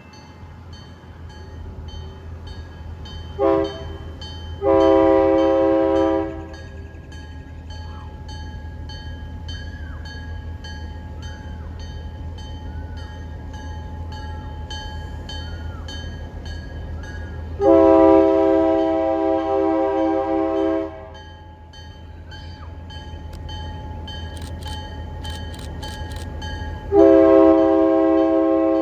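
Former Canadian National GP9U diesel locomotive's air horn sounding for grade crossings, several notes at once: a short blast and a long blast near the start, another long blast midway, and a long blast starting near the end. Under it runs the locomotive's steady low rumble.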